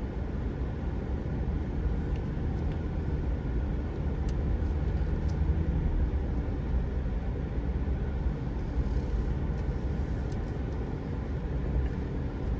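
Pickup truck driving slowly, with a steady low engine and road rumble.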